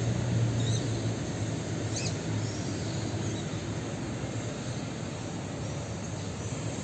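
Steady low rumble of street traffic, with two faint, short high chirps, one just under a second in and one about two seconds in.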